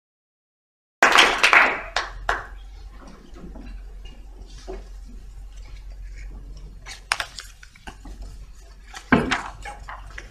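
Handling noise at a lectern: paper sheets rustling with scattered clicks and knocks, over a low steady hum. The sound starts suddenly about a second in with a louder rustling burst, and there is another louder knock near the end.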